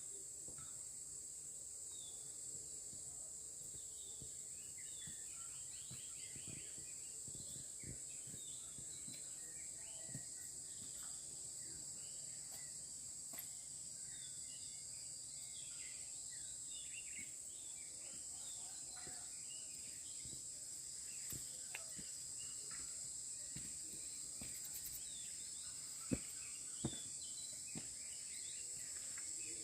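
Forest ambience: a steady, high-pitched drone of insects with scattered short bird chirps over it, and a couple of sharp clicks near the end.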